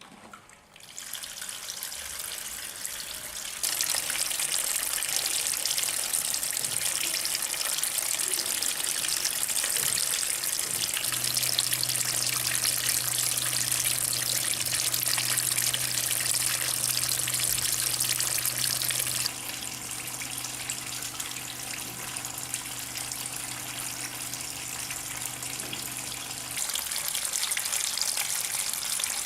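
Water falling and splashing from a homemade bamboo indoor fountain. The flow gets louder about four seconds in, softer a little past the middle, then louder again near the end. A low steady hum runs through the middle stretch.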